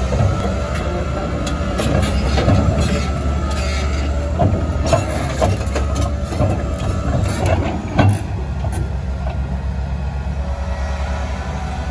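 Large diesel engine of a Komatsu PC1250-8R hydraulic excavator running with a steady low drone, with irregular metallic clanks and knocks over the first eight seconds and one sharp knock about eight seconds in.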